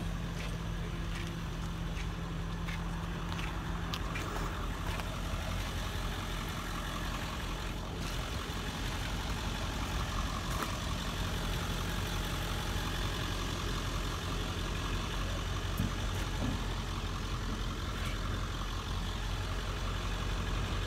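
An engine idling steadily with a low hum, and a few faint clicks over it.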